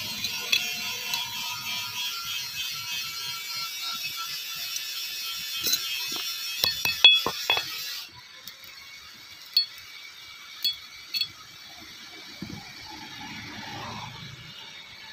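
Rusty bicycle chain rattling and clinking as it is handled, with a quick run of sharp metal hammer taps on the chain a little past halfway. It then drops abruptly quieter, leaving a few single clicks.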